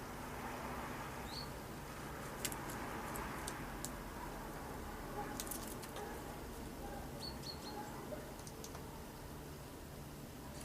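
Small birds giving occasional short, high chirps, three in quick succession near the end, with scattered sharp clicks over a steady background hiss.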